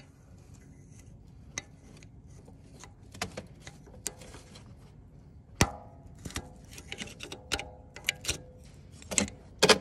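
Small screwdriver clicking and scraping against the plastic electrical connector on a turbo boost actuator as its locking clip is prised up and the connector worked off. Scattered light clicks, with one sharper click with a short ring about five and a half seconds in and a quick run of clicks after it.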